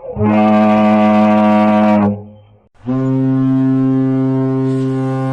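Foghorn sounding two long, deep blasts: one of about two seconds, then after a short pause a second steady blast that is still sounding at the end.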